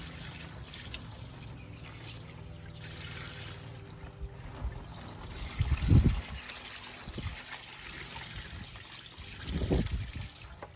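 Evapo-Rust rust remover pouring from a plastic bucket into a plastic-lined box, a steady trickle. Two low thumps come about six and ten seconds in.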